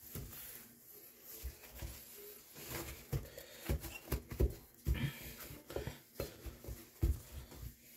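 A paper towel rubbing and buffing car polish over a white bathroom sink, with irregular soft rustles and light bumps of the hand against the basin.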